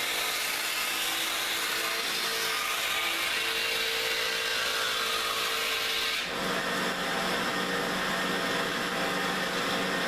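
Homemade wood-rounding machine (dowel maker) running: a belt-driven cutter head on an electric motor shaves a square cedar stick into a 30 mm round dowel with a steady, high-pitched cutting hiss. About six seconds in the sound changes to a lower, steadier hum.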